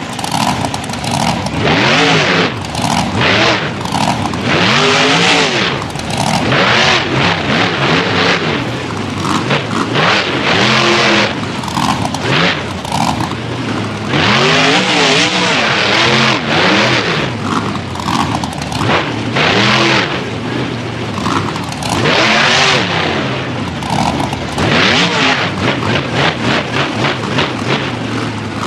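Grinder monster truck's supercharged V8 engine revving hard over and over during a freestyle run, its pitch climbing and dropping with each burst of throttle.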